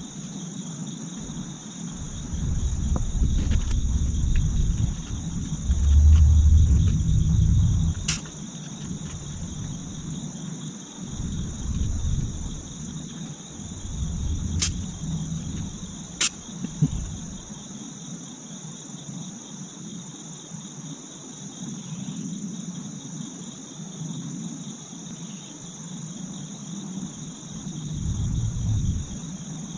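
Steady, high-pitched chorus of insects, with irregular low rumbles, loudest about six seconds in, and a few sharp clicks.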